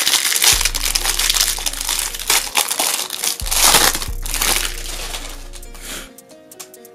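Plastic wrapper of a trading-card pack crinkling as it is torn open and the cards are pulled out; the crinkling dies away about five seconds in. Background music with a deep bass plays underneath.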